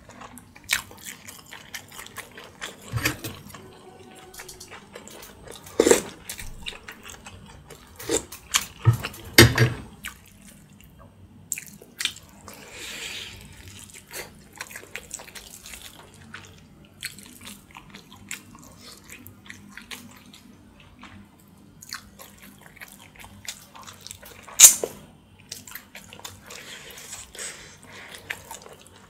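Close-miked wet mouth sounds of a person gnawing and sucking meat off a braised pork backbone: irregular wet smacks and clicks with chewing between them. Several louder smacks stand out, the loudest a few seconds before the end.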